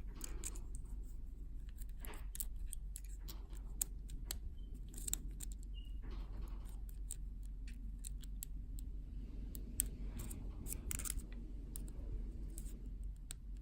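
Hook pick and tension wrench working the pins of a Yale rim cylinder: faint, irregular small metallic clicks and scrapes, several a second, over a low steady hum.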